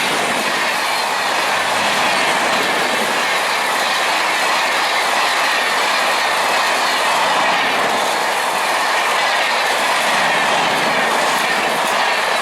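Passenger train running past at speed: a steady, loud clatter of wheels over the rails, with a faint high wheel squeal.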